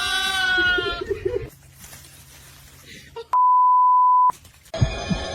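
A high-pitched, voice-like cry in the first second. About three seconds in comes a loud, steady single-tone beep lasting about a second and cutting off sharply, of the kind used to bleep out a word.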